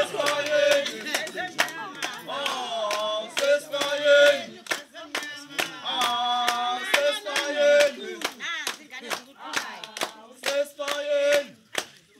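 A group of people singing, with held notes that bend in pitch, over a steady run of hand claps.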